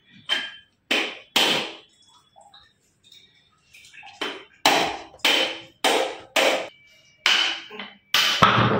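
Hard knocks on a broken coconut shell as it is struck with a knife to break it apart and free the flesh. There are three quick knocks, a pause of a couple of seconds, then a steady run of about eight more, each with a brief ring.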